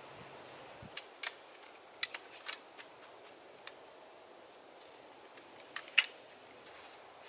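Metal tent poles clicking and clinking as they are handled and fitted together: a scatter of sharp clicks, the loudest about six seconds in.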